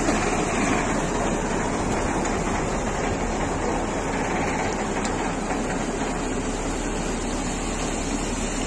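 A flooded Nissan Patrol being towed out of a river and dragged up a muddy bank: a steady rushing, churning noise of water washing around and off the body as it moves, with no break or change in level.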